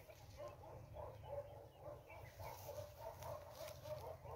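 Animal calls: many short notes repeated quickly and continuously, over a low rumble.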